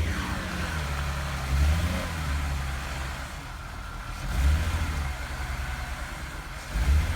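BMW Z3 2.2's straight-six engine, freshly replaced, running at low speed as the car moves, with the throttle opened in four swells a couple of seconds apart.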